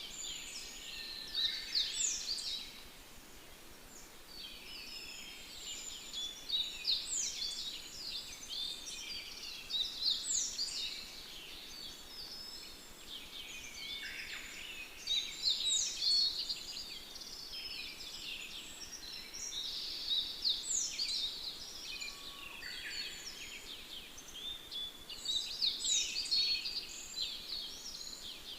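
Songbirds singing, a dense chorus of quick, mostly falling chirps and trills that come in bursts of several seconds with short lulls between, over a faint steady hiss.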